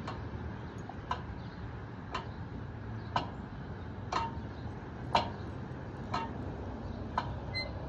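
Steady ticking, about one tick a second, over a low steady hum.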